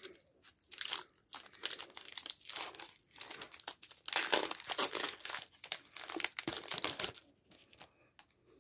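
Foil wrapper of a hockey trading-card pack being torn open and crinkled by hand: quick crackly rustles and rips that die away about seven seconds in.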